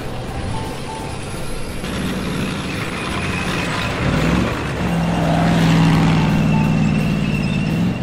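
Cartoon sound effect of a vehicle engine running, with a steady low rumble. About halfway in, a stronger droning engine tone comes in and holds until near the end, under background music.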